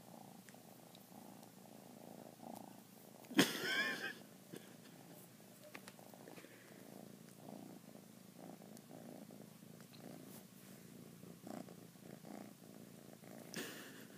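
A domestic cat purring steadily while it eats from a tin can. A brief, louder sound breaks in about three and a half seconds in.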